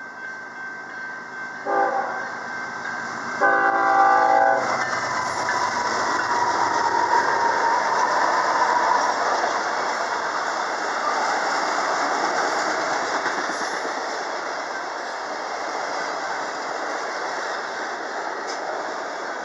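Diesel locomotive air horn sounding a short blast, then a longer one. The train then rolls past close by with a steady rushing of steel wheels on rail that slowly fades.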